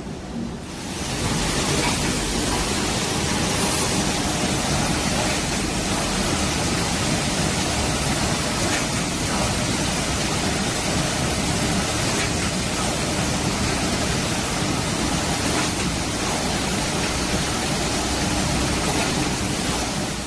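Steady, loud, hiss-like roar of running industrial machinery, such as a wood-based panel (chipboard/MDF/OSB) production line, swelling up about a second in and then holding even.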